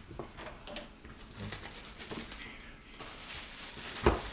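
Knife cutting potatoes on a cutting board: a few irregular knocks of the blade on the board over light rustling, the sharpest knock about four seconds in.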